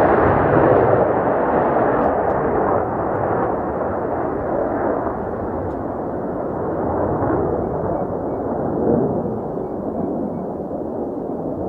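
Jet aircraft engine roar, a steady rumble that slowly dulls and eases off as the aircraft moves away.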